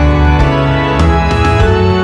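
Background music: held keyboard chords over a steady beat.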